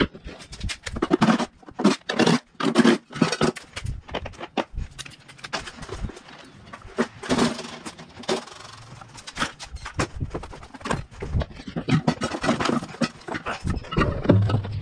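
Irregular knocks, clanks and scrapes of scrap metal being handled, with parts from stripped air-conditioner units shifted and dragged.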